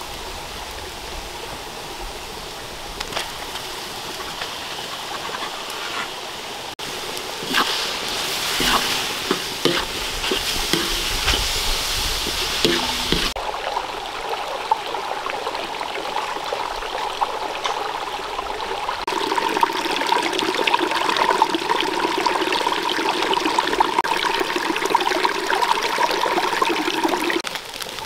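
Running water of a rocky stream, mixed with food frying in a wok and being stirred, with scattered knocks of the utensil against the pan.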